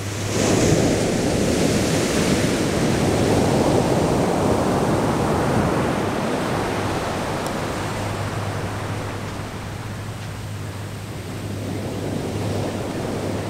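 Ocean surf breaking and washing up a sandy beach: a wave crashes about half a second in, its rush slowly dying away over several seconds, then the surf builds again near the end.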